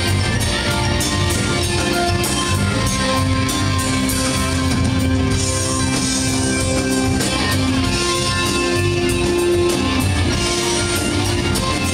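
A live rock band playing loudly and without a break: electric guitars over a drum kit.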